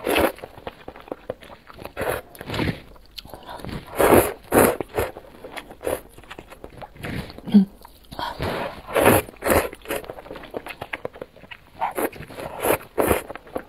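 Slurping and chewing noodles in spicy broth: repeated wet slurps with chewing between mouthfuls, the longest slurps about four, nine and thirteen seconds in.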